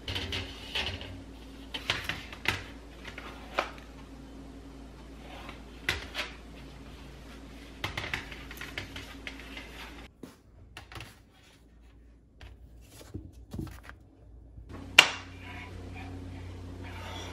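Kitchen items handled on a hard countertop: dish cloths rustling, an onion and a wire basket, and a bamboo plate rack, giving scattered light knocks and taps. One sharp knock comes near the end.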